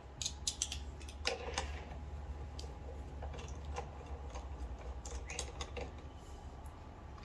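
Small, irregular clicks and light taps of bolts and hand tools being handled while dismantling a lawn mower carburettor, over a faint low hum.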